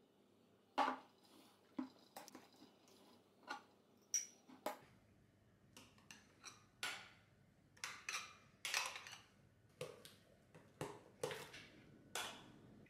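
Metal spoon knocking, clinking and scraping against a glass mixing bowl as thick cream-cheese filling is stirred and scooped out: a dozen or so short, sharp knocks at irregular intervals, one ringing briefly about four seconds in.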